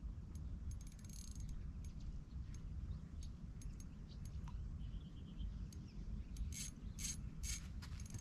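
Fishing reel clicking as it is cranked in against a hooked trout: a scatter of short, sharp ticks, with a few louder clicks near the end, over a low steady rumble.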